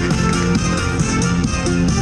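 Music with quickly changing notes over a steady beat.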